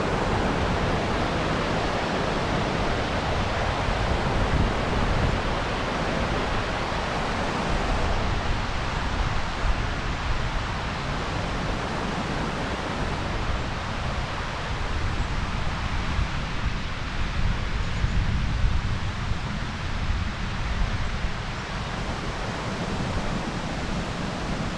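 Waterfall rushing steadily, with wind rumbling on the microphone.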